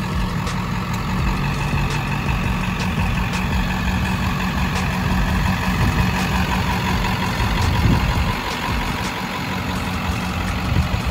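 Pickup truck engine idling steadily, a continuous low rumble.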